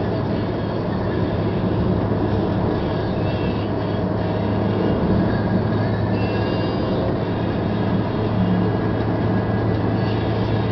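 Steady engine and tyre-on-road drone of a car cruising at highway speed, heard from inside the cabin, with a constant low hum under an even rush of road noise.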